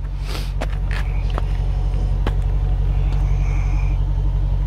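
Range Rover Sport's engine and exhaust running with a steady, deep rumble as the SUV crawls over a rock ledge, with a few sharp clicks and crunches of stones.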